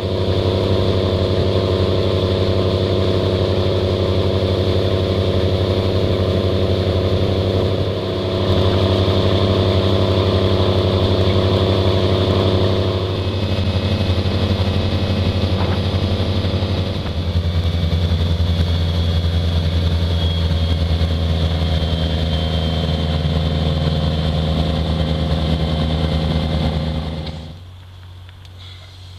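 Fishing boat's engine running steadily under way, its note shifting a few times before cutting off suddenly near the end.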